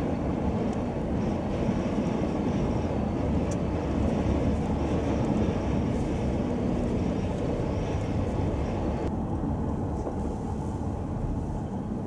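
Steady low rumble of a car driving on a snow-covered road, heard from inside the cabin: engine and tyre noise. A fainter hiss above it drops away about nine seconds in.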